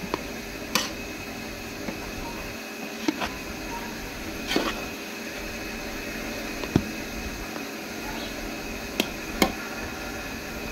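A metal spoon stirring cooked rice in a large metal pot, with about half a dozen sharp clinks and scrapes of metal on metal at irregular intervals over a steady background hiss.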